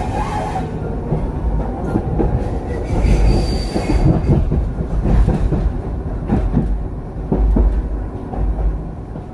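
Hiroshima Electric Railway (Hiroden) tram running, heard from on board: steady rumble of wheels on rail with repeated clicks over joints, and a brief high wheel squeal about three seconds in.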